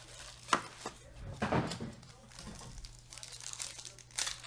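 Trading-card pack wrappers crinkling as cards are handled, with a few sharp clicks and taps as cards and packs are shuffled and set down.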